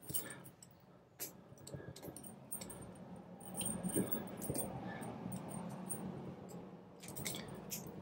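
Light metallic clicks and soft scraping from the buttons of a 10-button push-button combination padlock, pressed all the way down and pushed back up one after another to feel which ones resist. This is the lock being decoded by feel.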